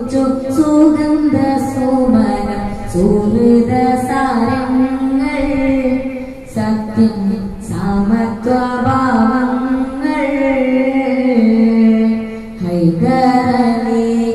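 A boy singing solo into a handheld microphone: a melodic song of long held, winding notes, its phrases broken by short pauses about six and twelve and a half seconds in.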